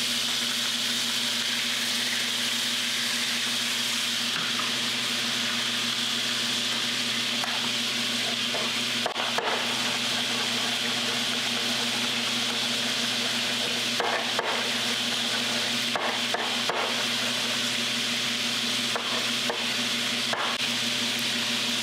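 Chicken pieces frying in olive oil and rendered fat in a pan, a steady sizzle as they brown on the second side. From about nine seconds in, a chef's knife knocks on a wooden cutting board in short scattered bursts, chopping thyme.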